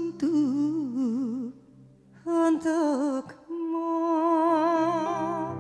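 Two women singing dangdut-style vocal ornaments (cengkok) into microphones, trading short phrases with heavy vibrato and wavering melismatic runs. There are three phrases, with brief pauses between them.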